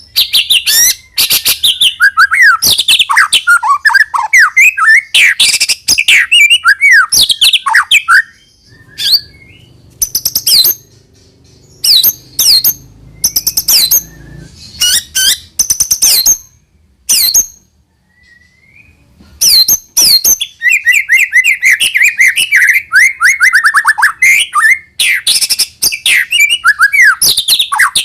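White-rumped shama (murai batu) singing loudly in rapid runs of whistled, gliding and chattering notes. The song thins to short separate calls in the middle, then turns dense again.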